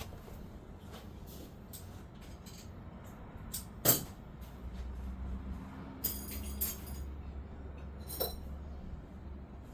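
Steel files and small metal tools clinking, with a few ringing taps and one sharp knock about four seconds in, as a worn chainsaw file is handled and swapped for a new one. No rhythmic rasp of filing is heard.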